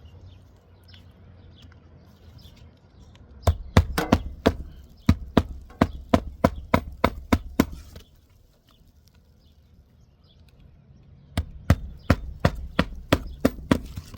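Hammer striking in two quick runs of sharp blows, three to four a second, with a pause of a few seconds between them: nailing during a shingle roof repair.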